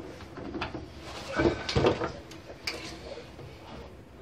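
Handling noises: a few irregular knocks and rustles as a hand works on the TV's sheet-metal backlight panel.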